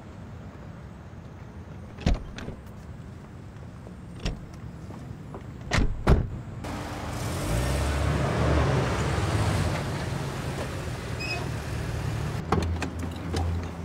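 A few sharp knocks, then from about halfway a car engine running with a louder rush of noise.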